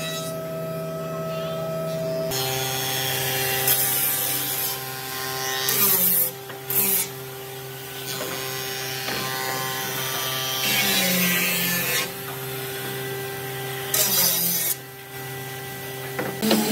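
Wooden boards scraping and bumping against each other as they are handled, in several short bursts, over the steady hum of a running shop machine.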